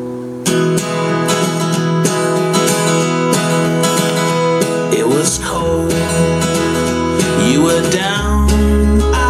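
Song intro with strummed acoustic guitar, played back through a Kenwood LS-F4 three-way bookshelf speaker with a piezo super tweeter. A bass line comes in about five seconds in and gets heavier near the end.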